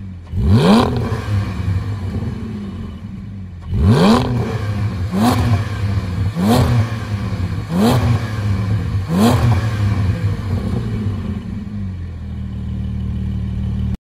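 Porsche 718 Cayman GT4's 4.0-litre flat-six breathing through an Fi valvetronic cat-back exhaust with secondary catless pipes, idling and free-revved in short blips. One blip comes about half a second in, then five quick blips from about four seconds in, roughly one every second and a quarter, each rising and dropping back to idle.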